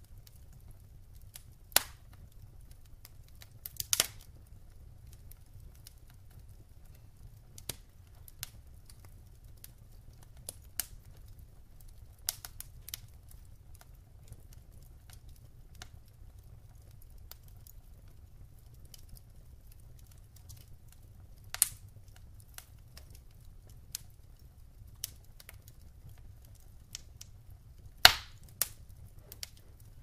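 Logs burning in a fireplace, crackling with scattered sharp pops, the loudest pop near the end, over a faint steady low rumble.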